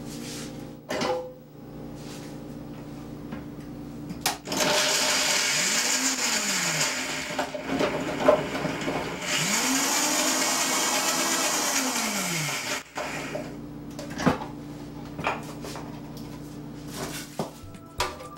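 Countertop blender shredding raw carrot pieces: the motor starts about four seconds in and runs for about eight seconds before stopping. Clicks and knocks of the glass jar and lid come before and after it.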